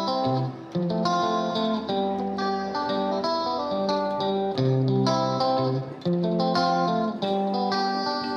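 Background music: a plucked guitar tune played note by note.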